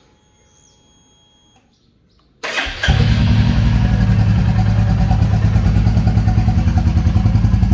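A Royal Enfield Classic 350's single-cylinder engine, fitted with an HK Indori aftermarket silencer, starting on its electric starter about two and a half seconds in after a short crank. It then settles into a steady idle with an even, rapid exhaust thump.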